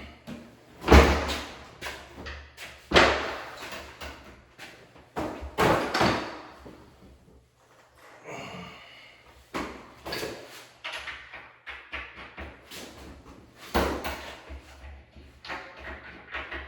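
Heavy wooden thumps and knocks as an interior door and its frame are handled and set in place, the loudest about a second in, with a short squeak in the middle.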